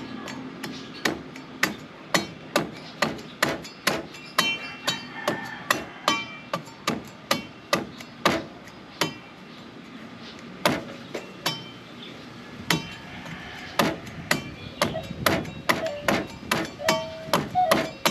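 Rusty machete chopping the green husk off a coconut: a long run of sharp chops, roughly two a second, with a brief pause just after halfway.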